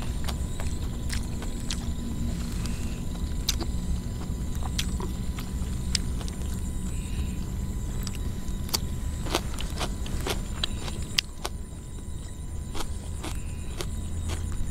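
Close-up eating sounds: irregular sharp clicks of chewing and lip smacks while vegetables are eaten and dipped in sauce. Under them runs a steady low rumble, with a thin high chirring in the background.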